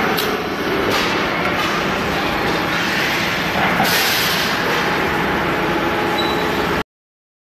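Steady factory machinery noise, with a short, harsh burst about four seconds in as the stud welding gun fires a handle stud onto the aluminium frypan's wall. The sound cuts off abruptly near the end.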